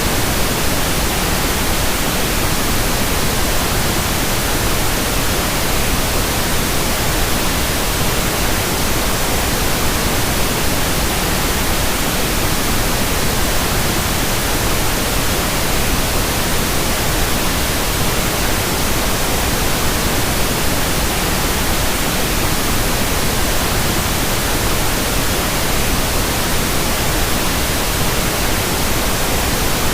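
Steady tinnitus masking noise: an even, unchanging hiss spread across the whole range from deep to high, without tones, rhythm or breaks.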